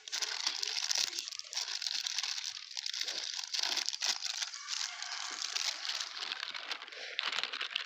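A foil-lined plastic snack packet crinkling as it is pulled open and handled, then ring-shaped puffs pouring out of it into a steel plate.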